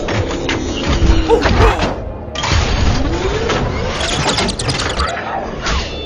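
Busy run of thuds and crashes mixed with gliding whistle-like tones, over background music.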